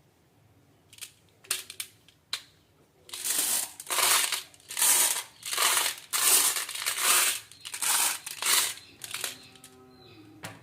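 Marbles running down a wooden marble-run slope: a few sharp clicks, then a quick series of rolling rattles, one about every 0.7 s.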